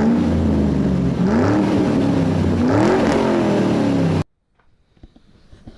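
A vehicle engine revving, its pitch rising and falling several times, then cutting off abruptly about four seconds in.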